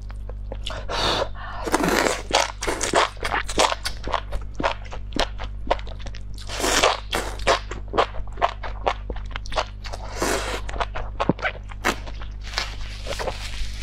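Close-miked eating of enoki mushrooms in spicy chili oil: crunchy, wet chewing clicks in quick succession, broken by several longer slurps as strands are sucked in.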